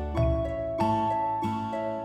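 Background music: gentle plucked notes over a sustained low bass, a new note about every 0.6 seconds.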